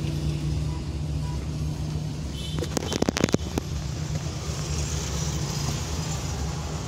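A quick cluster of sharp metallic clicks and knocks about three seconds in, as the clutch hose fitting is worked onto the clutch master cylinder under the dashboard, over a steady low hum.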